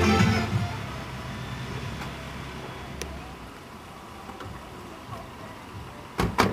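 Music fading out, then the low steady hum of a stopped SUV in the open air, with a click about three seconds in and two sharp car-door thumps near the end.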